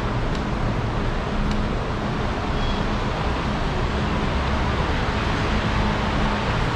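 Steady road-traffic noise with a low engine hum that comes and goes, and a couple of faint clicks in the first two seconds.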